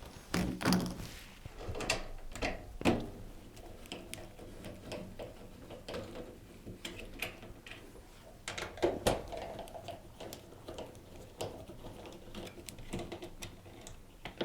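Screws at the back of a Zanussi washing machine's top panel being undone, then the metal top slid back and lifted off, heard as scattered clicks and knocks of tool and panel.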